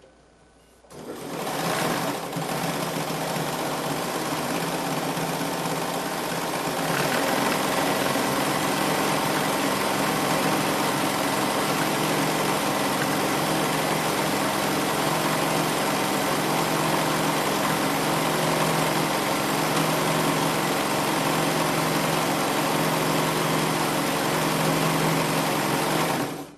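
Bernina 940 sewing machine running. It starts about a second in, picks up speed around seven seconds, then runs steadily until it stops near the end.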